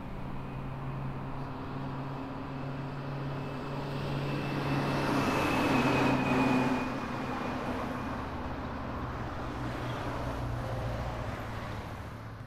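Street traffic with a vehicle passing, the noise swelling to its loudest about five to seven seconds in and then fading, over a steady low hum.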